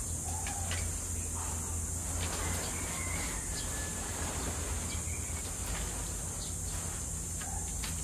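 Steady background ambience: a low hum and a constant high hiss, with a few faint short chirps and light clicks scattered through it.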